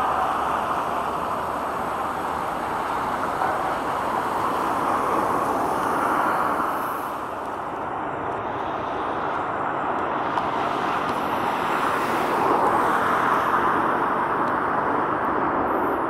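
Distant jet airliner engines, a steady rushing roar that eases about a third of the way in and swells again near the end.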